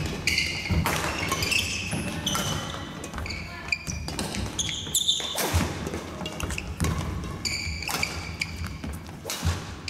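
Badminton rally on a wooden gym floor: rackets repeatedly striking the shuttlecock with sharp clicks, court shoes squeaking in short high chirps as the players lunge and push off, and thudding footfalls.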